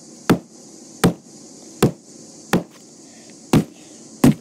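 Hammer striking a box again and again: six sharp blows, about three-quarters of a second apart.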